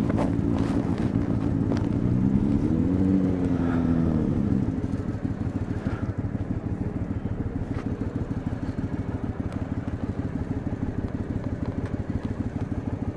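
Cruiser motorcycle engine running at low road speed, heard from the rider's seat: a steady low, rapidly pulsing engine sound, with a pitched note that rises and then falls once around three seconds in.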